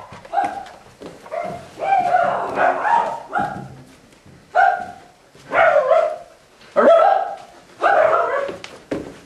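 A dog barking repeatedly, about one bark a second, with a longer run of barks about two to three seconds in.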